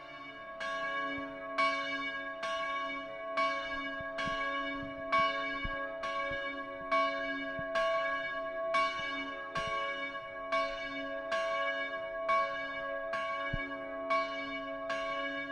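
Church bell ringing at a steady pace, a stroke a little under once a second, each stroke ringing on into the next.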